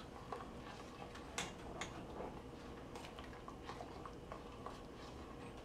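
Utensil stirring and scraping in a stainless steel stockpot, giving irregular light clicks and taps against the metal, over a faint steady hum.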